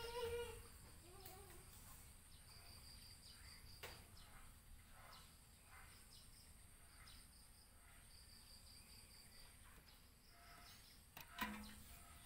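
Near silence: faint background ambience with a thin, high, rapidly repeated chirping in short runs, and a brief knock about a second before the end.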